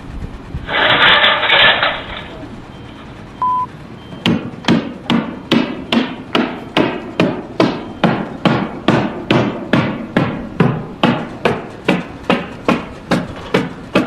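Steady, even hammer blows, a little over two a second, beginning about four seconds in. Before them comes a loud burst of noise lasting about a second and a half, then a short beep.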